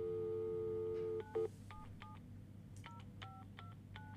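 A telephone dial tone for just over a second, then a touch-tone keypad dialing a number: a string of short two-note beeps at uneven spacing.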